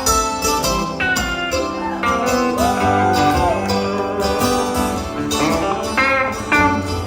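Band playing an instrumental passage led by guitar, with a bent note about three seconds in.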